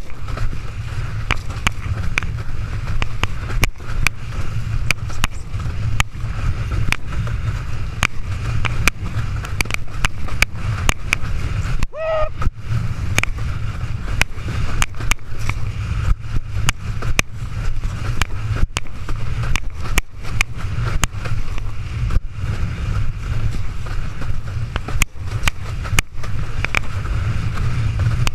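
Wind buffeting the microphone of a camera worn by a windsurfer planing at speed, with constant rumble and many sharp knocks and splashes as the board slaps over chop and spray hits the camera. A brief wavering tone sounds about twelve seconds in.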